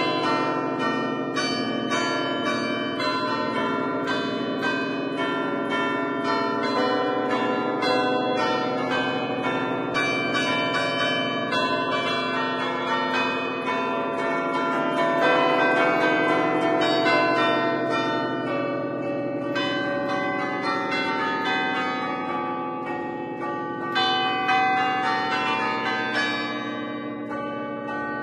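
A ring of ten bronze church bells in A, cast by Barigozzi in 1950, played as an allegrezza. The stationary bells are struck in quick succession from a lever keyboard worked with the fists, ringing out a lively traditional tune with the notes overlapping and ringing on.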